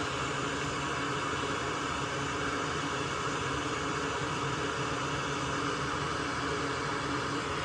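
Steady fan-like hiss with a low hum underneath, unchanging throughout, with no distinct clicks or knocks.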